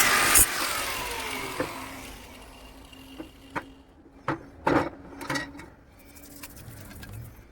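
A loudly running machine stops with a click about half a second in and spins down, its whine falling in pitch as it fades. Then come a few separate short knocks, like parts being handled.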